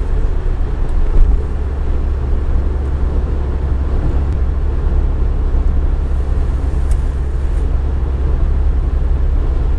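Steady low rumble of road noise inside a car's cabin while it cruises at about 80 km/h.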